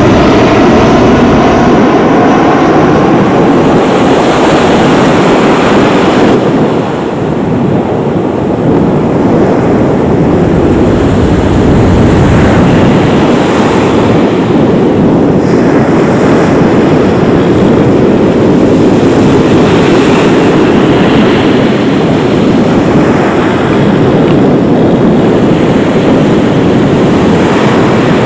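Boeing 737-800's CFM56 jet engines running at taxi power, a loud, steady rushing roar, with the exhaust pointed toward the microphone. The sound dips briefly about seven seconds in.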